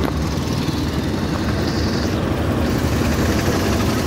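Steady rumble of a moving vehicle, engine and road noise running evenly without a break.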